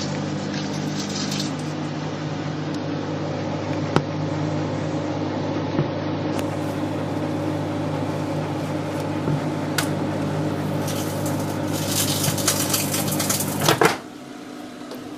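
Microwave oven running with a steady hum while a CD inside sparks: a few sharp cracks, then dense crackling for about three seconds before the oven shuts off about fourteen seconds in.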